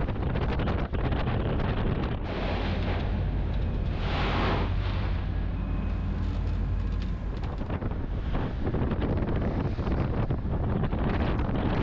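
Strong wind blasting across the microphone, a heavy, rumbling rush that surges louder about four seconds in.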